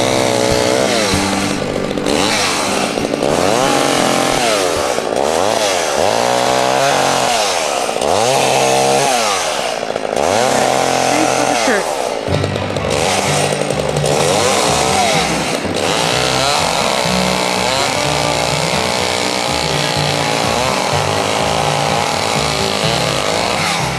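Chainsaw cutting through a tree, its engine revving up and down over and over, then running more steadily in the second half.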